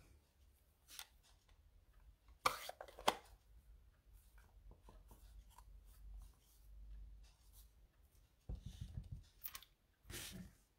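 Quiet handling of stamping supplies on a craft table: clicks and knocks of plastic ink pad cases and a clear acrylic stamp block, with two sharper clicks about two and a half seconds in, a run of soft thumps about eight and a half seconds in, and another knock near the end.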